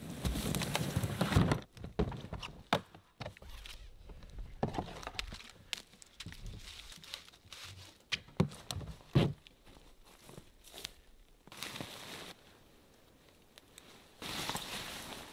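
Footsteps in thin snow and a plastic storage tote dragged along, then scattered knocks and rustles of rope and canvas handling as a ridgeline is tied to a tree and a canvas hot tent is hauled up. Two sharp knocks stand out in the middle, and the rustling of the canvas grows near the end.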